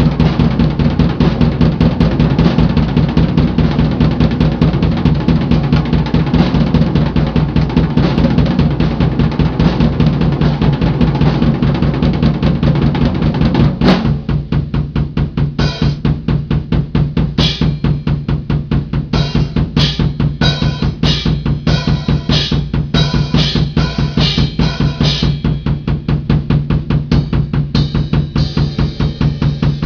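Drum kit played solo with fast, continuous bass drum and snare strokes. About halfway through there is a loud accent, and after it bright cymbal hits land regularly over the drumming.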